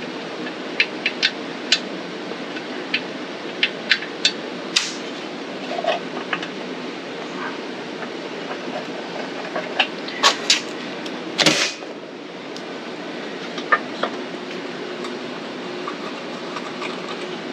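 Scattered metal clicks and clinks as screws and parts are handled while the blower housing is fastened onto a small engine, over a steady hum. A louder scrape comes about eleven and a half seconds in.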